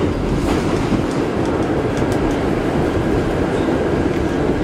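Subway train running, heard from inside the car: a steady rumble of the wheels on the rails with a few faint ticks.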